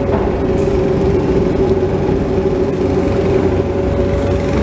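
Bobcat 337 mini excavator's diesel engine and hydraulics running steadily as the loaded bucket swings, heard from the operator's seat, with a steady hum throughout.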